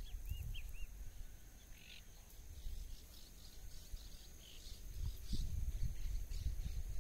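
Wind rumbling on the microphone, heaviest at the start and again over the last two seconds, with small birds chirping: a quick run of four short chirps in the first second, then scattered calls. A thin steady high whine runs underneath.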